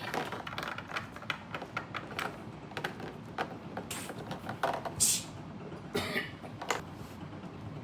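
Irregular light clicks and knocks of Lego plastic pieces being handled, with a brief rustle about five seconds in.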